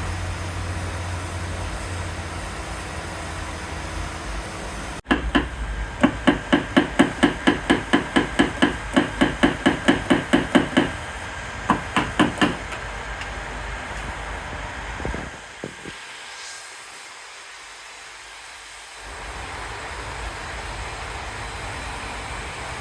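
Rapid, even metallic tapping at about four taps a second for some five seconds, followed by a short second run of taps. These are paintless dent repair taps, a tap-down hammer knocking down high spots in a vehicle's body panel.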